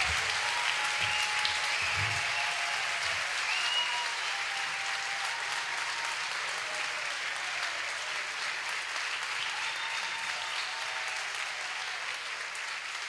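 Audience applauding and cheering, with a few shouts or whistles in the first few seconds; the applause slowly fades.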